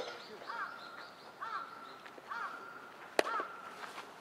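A bird calling over and over, four short arched calls about a second apart. A single sharp crack comes about three seconds in and is the loudest sound.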